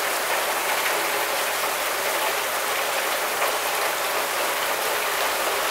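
Heavy rain pouring down steadily on trees and lawn in a thunderstorm: an even, unbroken hiss.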